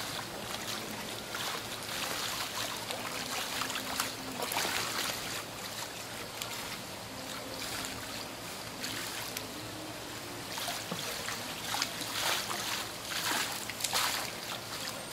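Water splashing in a live-fish tank as a small shark is chased and scooped up in a plastic dip net, over the steady trickle of the tank's running water. The splashing comes in bursts, loudest about four to five seconds in and again from about eleven to fourteen seconds as the shark thrashes in the net.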